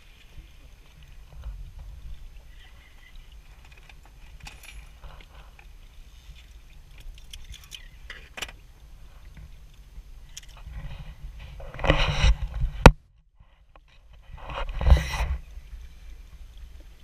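Water lapping against a boat hull, with a low rumble of wind on the microphone and scattered light knocks. Two loud bursts of rushing noise come about twelve and fifteen seconds in, with a second of near-silence between them.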